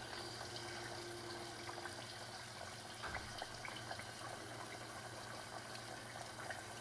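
Garnet yam fries bubbling gently in shallow oil in a stainless saucepan, a faint steady hiss with a few faint ticks. This is the low-temperature first blanch in oil, at about 220°F, so the frying is quiet rather than a loud sizzle.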